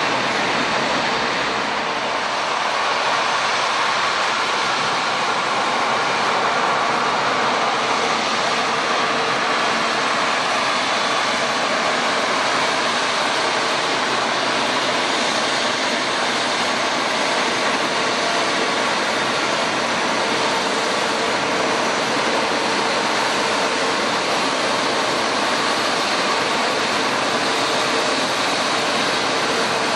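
Jet airliner engines running steadily, a loud even rushing noise with a faint steady hum under it.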